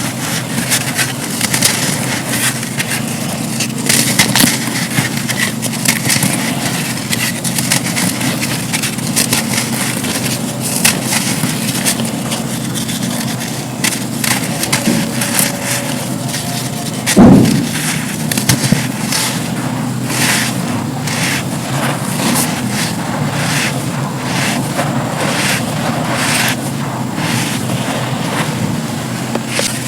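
Dry black sand slabs crumbling: a steady run of crisp crackling crunches, with one heavier thump a little past halfway, over a steady low hum.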